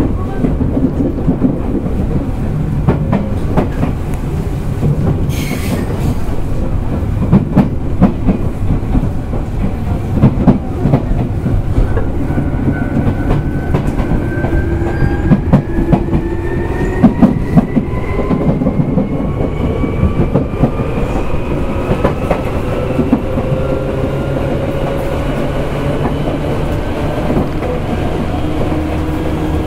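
Tokyu 8500 series electric train heard from inside a motor car while running: a steady rumble with wheels clicking over rail joints. From about halfway through, the traction motor and gear whine rises slowly in pitch as the train gathers speed.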